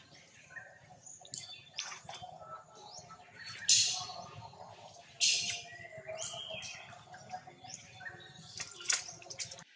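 Short, sharp, high-pitched animal calls, several in a row, the loudest about four, five and nine seconds in.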